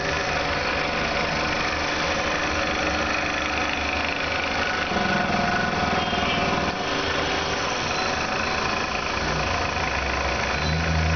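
A motor running steadily: a constant hum of several fixed tones over a hiss, with no change in speed.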